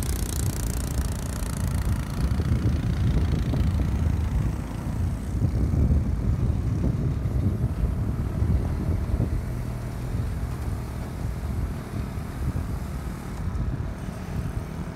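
Diesel engines of truck-mounted cranes running during a lift, a steady low rumble that eases a little near the end.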